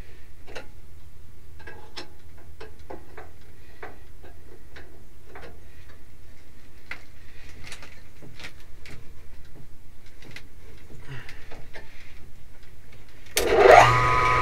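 Scattered light metallic clicks and taps of hand work on a mill-drill's head while an R8 collet and 12 mm end mill are being fitted and the drawbar secured, over a low steady hum. Near the end a loud whine rises quickly in pitch and holds steady for about two seconds.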